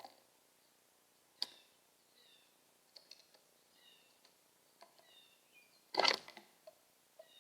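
Birds calling faintly: a run of short, high, falling chirps, with a few sharp clicks and one loud rustling clatter about six seconds in.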